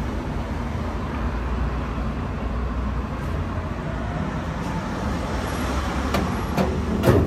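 Steady low rumble of street traffic, with a few sharp knocks near the end, the loudest just before the end.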